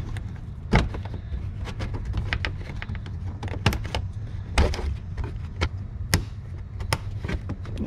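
Irregular clicks and knocks of a plastic engine undercover being pushed back into place under a car and its plastic clips fitted, the sharpest knock about a second in. A steady low hum runs underneath.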